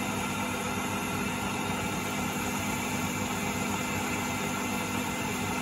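Myford ML-7 lathe running steadily under power feed, its motor and gearing giving an even hum with a few steady tones, while a tool steel cutter takes a fine skimming cut along a mild steel shaft.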